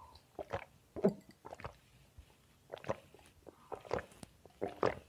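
A person gulping milk from a cup: a run of short, quiet swallowing sounds, about two or three a second.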